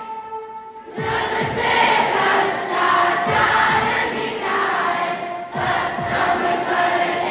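A large crowd of schoolchildren singing a prayer together in unison. There is a brief pause in the first second before the next line begins.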